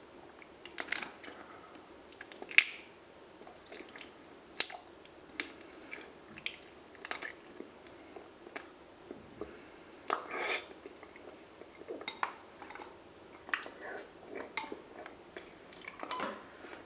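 Close-miked eating of raw honeycomb: wet, sticky chewing with lip smacks and sharp irregular clicks, the loudest click about two and a half seconds in.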